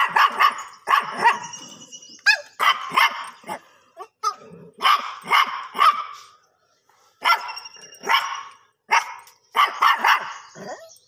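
A black-and-white dog barking repeatedly at close range, in runs of several quick barks broken by short pauses.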